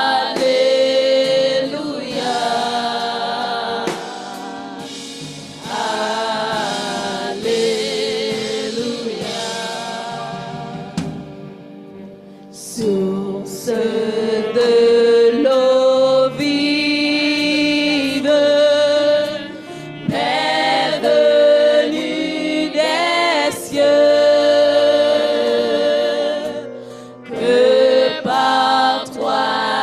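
Women's vocal group singing a gospel praise song together through microphones, in long held notes and phrases, with a brief lull about eleven seconds in.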